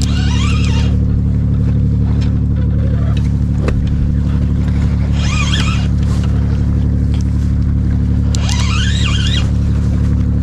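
Steady low drone of a running engine, with a bird giving a high, wavering call three times: near the start, about halfway and near the end.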